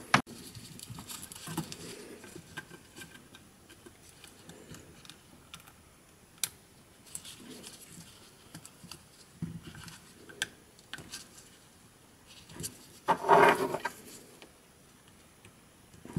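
Small clicks, taps and rustling of gloved hands handling loose circuit boards and plastic speaker parts, working a small wire plug into a board's socket, with a sharper click about six seconds in. A brief louder sound comes about thirteen seconds in.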